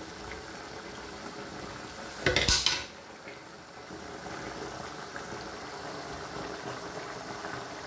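Meat and tomato sauce simmering in a frying pan with a steady bubbling. A brief, loud clatter of cookware comes about two seconds in.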